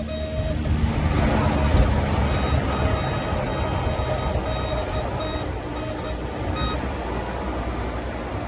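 DHC-6-300 Twin Otter's twin PT6A turboprop engines and propellers running loud, heard from inside the cockpit, with a heavy steady drone. The noise swells about a second in, then holds steady.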